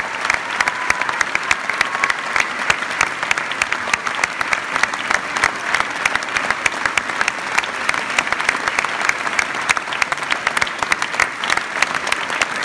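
Theatre audience applauding, a dense, steady sound of many hands clapping.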